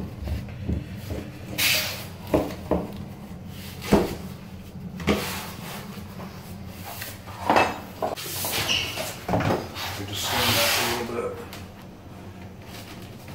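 Vinyl plank flooring being pressed into its butt joint by hand: a scatter of knocks and clicks of plank against plank and floor, and a scraping rub near the end.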